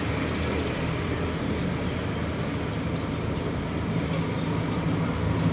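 Car-wash pressure washer running with a steady low hum, its water jet hissing as it sprays the engine bay.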